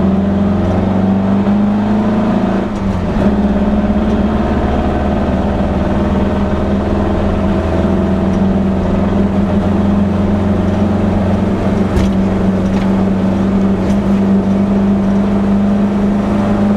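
Air-cooled Volkswagen flat-four engine of a Baja Bug running steadily under load, heard from inside the cabin. The engine note drops briefly about three seconds in, and a few sharp knocks from the bumpy ride come later on.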